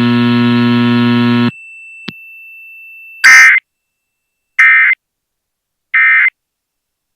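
A loud, steady buzzing hum cuts off about a second and a half in, leaving a faint thin whine. Then three short data-tone bursts sound about a second apart: the Emergency Alert System end-of-message code that closes the alert.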